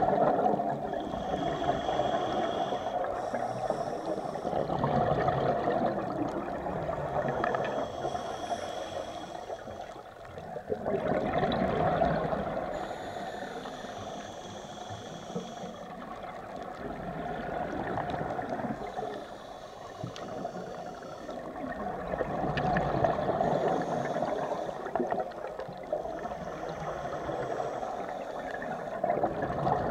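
Scuba diver breathing through a regulator underwater: gurgling rushes of exhaled bubbles swell and fade every few seconds, with a thinner hiss between them.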